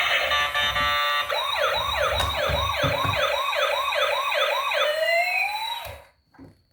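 Toy emergency vehicle's electronic siren sounding in quick rising-and-falling sweeps, about three a second, after about a second of music, then cutting off suddenly near the end.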